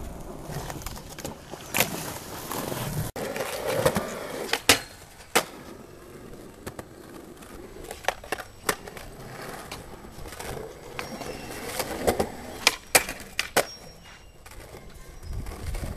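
Skateboards rolling on concrete, with a dozen or so sharp, loud clacks of boards popping and landing during tricks.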